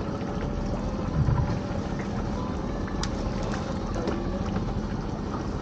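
Steady low rumble and hum of a small open fishing boat at sea, with wind on the microphone and a few light knocks as a crab pot is hauled up over the side.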